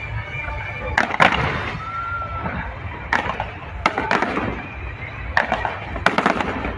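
Aerial fireworks shells bursting: a string of sharp bangs and crackles over a steady low rumble, coming thickest near the end.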